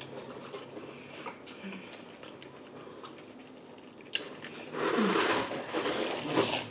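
Close-up eating sounds from a large hamburger in a paper wrapper. Soft chewing and small mouth clicks at first, then from about five seconds in, louder crinkling of the wrapper as the burger is squeezed and bitten into.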